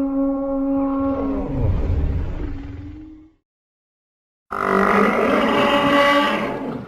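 Olorotitan dinosaur call sound effects: a long call held on one pitch, sinking into a low rumble and fading out about three seconds in, then after a second of silence a second, harsher roaring call that cuts off near the end.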